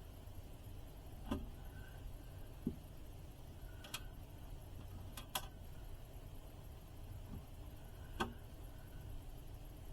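Scattered light clicks and taps, about six spread unevenly over ten seconds, of hands handling amplifier parts on a workbench.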